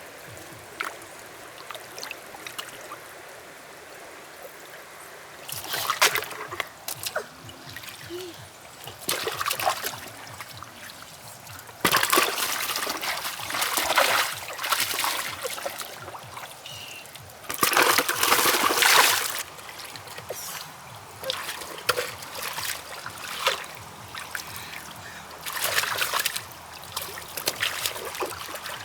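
Muddy water sloshing and splashing in irregular bursts, with trickling in between.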